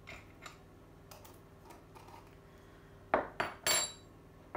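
A metal teaspoon knocking three times against a mixing bowl about three seconds in, the last knock ringing briefly, as ground cinnamon is tapped off into the dry mix. A few faint small taps come before.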